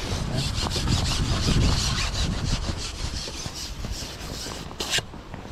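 Carbon fishing pole sliding through the hands and over a pole roller as it is fed out: a rhythmic rubbing and scraping of about four or five strokes a second, with one sharp click near the end. Wind rumbles on the microphone underneath.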